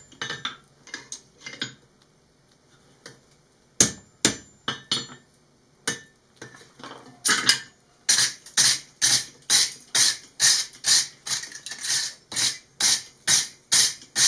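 Hand hammer striking hot steel: a few scattered blows, then from about halfway a steady run of about two and a half strikes a second. The smith is driving a Smith's Magician fullering tool into a heated railroad spike to set the fullers between handle and blade.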